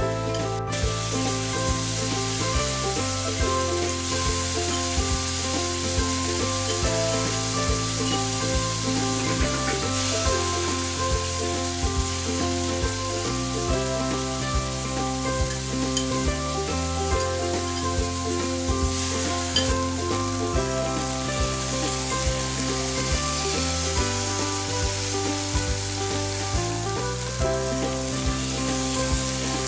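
Prawns sizzling as they fry in hot oil in a pan, turned now and then with a spatula, under background music with a steady, stepping bass line.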